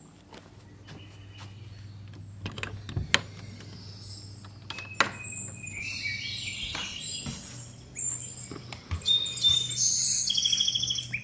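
Smartphone alarm ringing with a chirping, birdsong-like tone that grows louder and repeats faster over the last few seconds, then cuts off suddenly as it is stopped. A few sharp clicks and knocks come before it.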